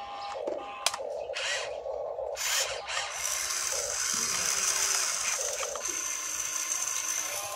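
RC excavator's electric motors whining as the boom, arm and bucket move: several short bursts over the first three seconds with a sharp click under a second in, then a steadier high-pitched whine from about three seconds in as the excavator swings a bucket of soil over the dump truck and unloads it.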